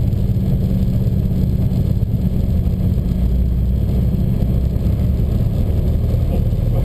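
Piper PA-28's piston engine and propeller running steadily, a low drone heard from inside the cabin, as the plane rolls out along the runway after touchdown.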